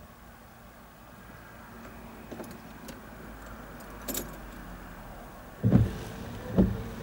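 Car windscreen wiper making a sweep across rain-wet glass, with two heavy thumps about a second apart near the end as the blade reaches the ends of its travel. Before it comes a sharp click, over a low rumble that slowly grows.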